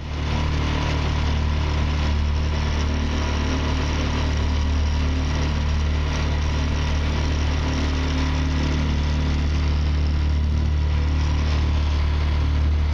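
Small outboard motor running steadily at constant speed, pushing the boat along, with an even low hum.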